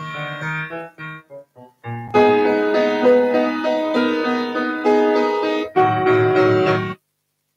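Grand piano played solo: a few sparse, quieter notes, then loud full chords from about two seconds in. The playing cuts off suddenly near the end.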